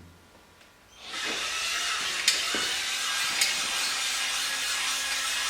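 Compressed air hissing steadily, starting about a second in, with a few sharp clicks over it.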